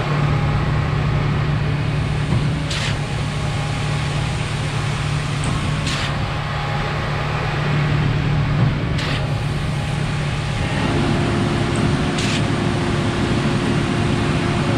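Truck-mounted concrete pump running under load: a steady diesel engine drone with a sharp knock about every three seconds as the pump strokes. About eleven seconds in, a higher steady tone joins the engine note.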